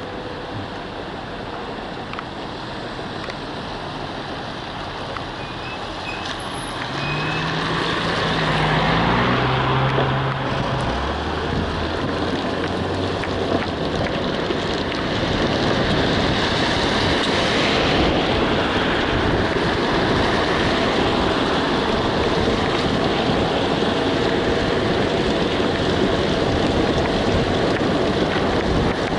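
Steady road and engine noise of a car in motion, heard from inside the cabin, getting louder about seven seconds in.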